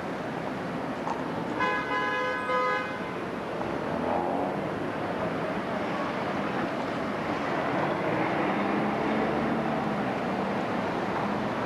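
Street traffic with cars driving by, and a car horn sounding once for about a second, around two seconds in.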